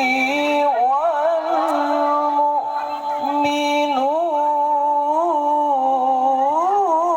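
A voice chanting Quran recitation in one long, drawn-out melodic note, the pitch held for long stretches and bending in small ornamental turns.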